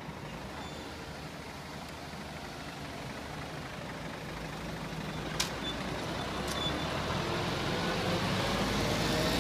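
Road traffic at a level crossing: car and truck engines idling, then pulling away across the tracks as the barriers lift, growing louder as the vehicles come closer. Two short, sharp clicks about halfway through.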